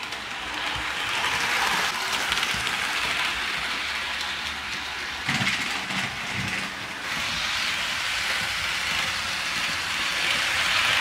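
HO scale Athearn Genesis Union Pacific 844 model steam locomotive running along sectional track, a steady hiss-like rolling noise that builds up over the first second or two.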